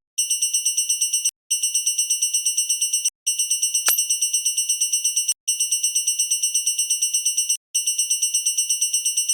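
Railroad crossing warning bell ringing in rapid, evenly repeating high dings, cutting out briefly a few times and starting again. A quick rising whistle-like glide sounds about four seconds in.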